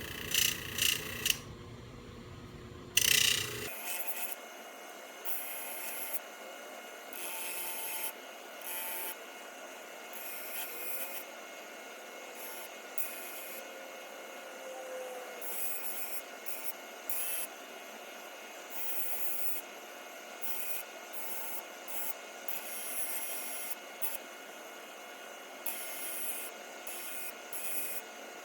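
Abrasive fiber wheel spinning against the rusty, pitted steel of a pair of lineman's pliers, a steady scrubbing that grows and eases unevenly as the pliers are pressed on and moved about. A few sharp knocks come in the first few seconds.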